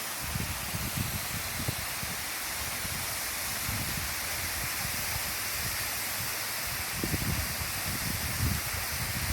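Waterfall rushing steadily, with low gusts of wind buffeting the microphone now and then.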